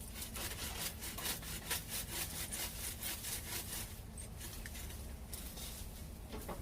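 Hand saw cutting through a tree branch: quick back-and-forth strokes, about three to four a second, easing off after about four seconds.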